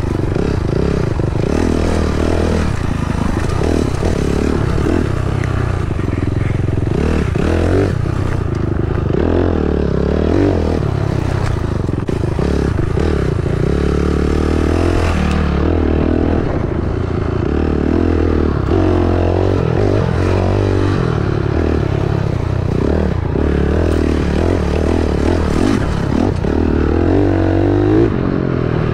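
Dirt bike engine revving up and down over and over while riding, its pitch rising and falling every second or two, with some clatter mixed in.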